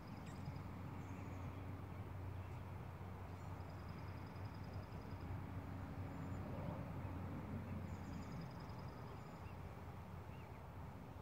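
Quiet outdoor background: a steady low hum, with a rapid high-pitched trill that comes and goes in short spells a few seconds apart.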